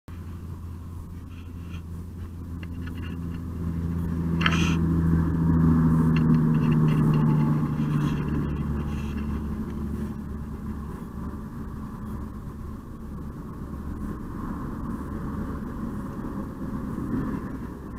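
A motor vehicle's engine passing on a nearby road, growing louder for a few seconds around the middle and then fading away. A single sharp click about four and a half seconds in.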